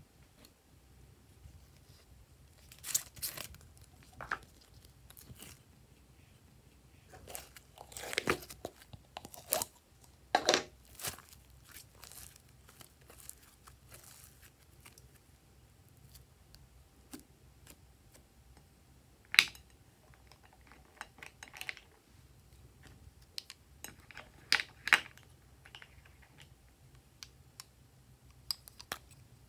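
Glossy slime handled by hand: stretched, pulled and pressed, giving scattered sticky crackles and pops in short clusters, with a few sharp clicks, the loudest about two-thirds of the way through.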